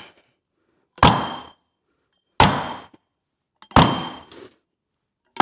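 Four hammer blows, about one and a half seconds apart, each ending in a short metallic ring. They are driving a hydraulic cylinder's piston with tight V-pack seals into the cylinder bore.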